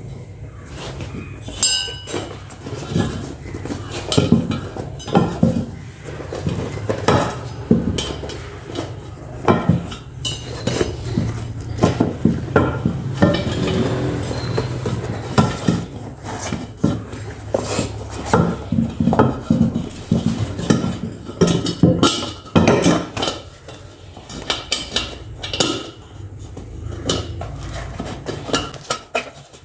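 Irregular metallic clinks and knocks of steel tools against a motorcycle wheel rim as a tube and tyre are worked on, over a steady low hum.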